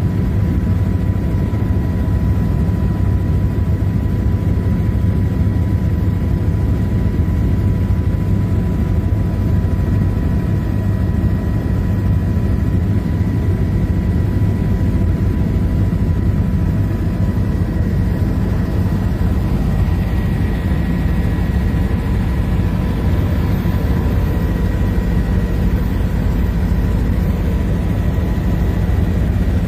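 Helicopter running steadily: a constant low rumble with a steady high whine over it.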